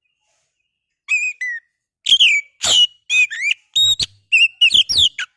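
Oriental magpie-robin (kacer) singing: after about a second of silence, a quick run of loud, varied whistled notes that slide up and down in pitch.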